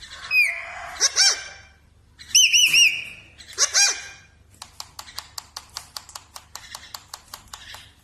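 Pet parrot calling and whistling: a short falling whistle, a few pitched calls, and three quick arched whistle notes. Then a run of sharp clicks, about five a second for some three seconds.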